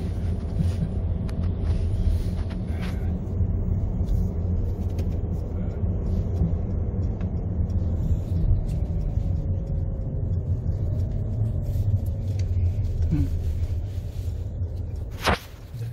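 Steady low rumble of a Mercedes C300T estate car heard from inside the cabin while driving slowly through town, engine and tyre noise together. A single sharp click comes near the end.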